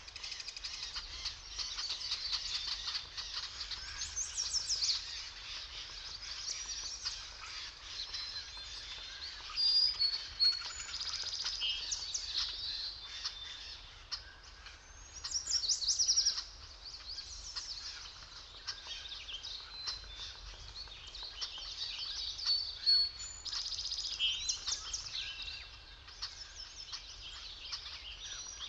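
A chorus of several small songbirds in a forest, with overlapping chirps, trills and short whistled phrases, a few louder bursts now and then.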